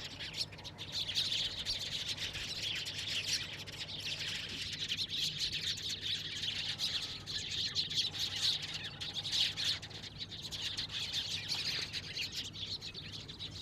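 A flock of Eurasian tree sparrows chirping together in a dense, continuous chatter of many overlapping short chirps.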